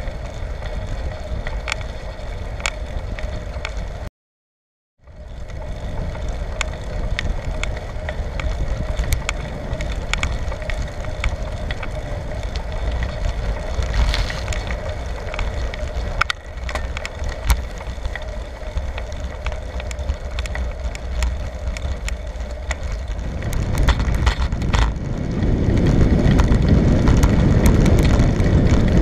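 Riding noise on a bicycle: wind buffeting the microphone over tyre and road rumble, with scattered clicks and rattles. The sound drops out for about a second near the start, and the rumble grows louder about 23 seconds in.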